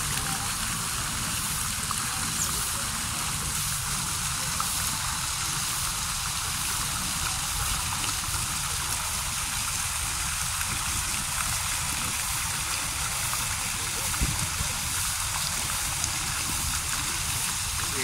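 Steady rushing and splashing of small fountain jets spouting into a pond.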